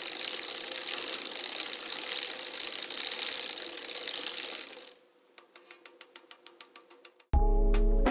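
Film projector sound effect: a steady whirring hiss with a faint hum, which cuts out about five seconds in and gives way to a run of rapid clicks, about ten a second. Music with a heavy bass beat starts near the end.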